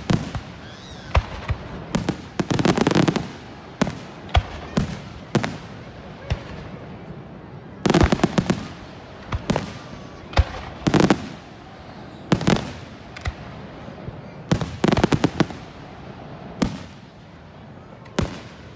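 Aerial fireworks shells bursting in a series of sharp bangs and crackles. The bangs come in clusters every few seconds, with single bangs between them.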